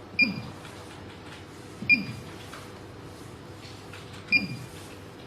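Paging-system keypad keys pressed three times, each press giving a soft thump and a short high beep, about two seconds apart, as a pager number is entered for pairing.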